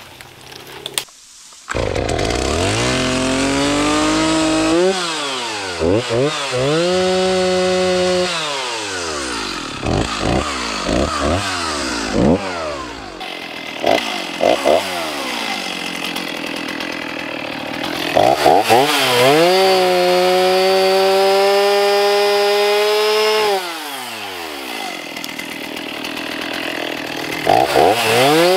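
Gas chainsaw cutting juniper saplings. The engine is revved up and down in short bursts and twice held at high revs for a few seconds as it cuts, then drops back.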